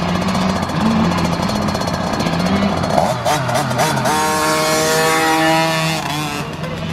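Dirt bike engines revving, their pitch rising and falling as the throttle opens and closes, with a higher held engine note through the middle.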